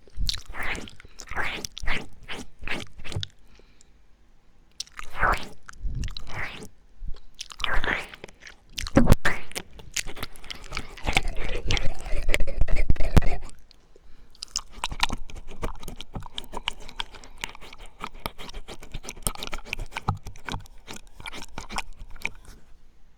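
Mouth sounds for ASMR ear eating and ear licking: rapid smacking and clicking in bursts. The bursts are loudest and densest from about eight to thirteen seconds in, then give way to a softer, quicker patter of clicks.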